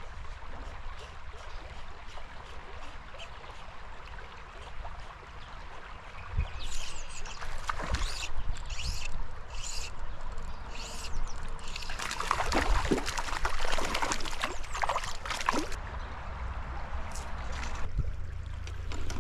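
A hooked brown trout splashing and thrashing at the surface of a shallow spring creek, in scattered splashes from about six seconds in and heaviest from about twelve to sixteen seconds, over the steady trickle of the stream.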